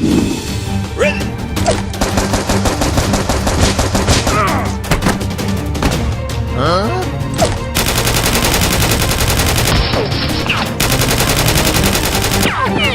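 Rapid automatic gunfire in long continuous bursts, with a few short whistling sweeps and background music underneath.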